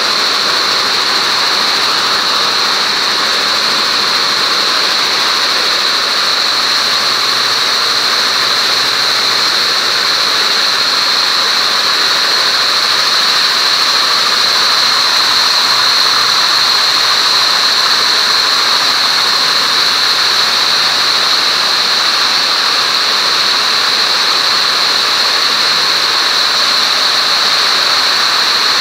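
A shed full of MAX910 air-jet weaving looms running at speed: a dense, steady machine din topped by a loud, constant high-pitched hiss from the air jets that carry the weft.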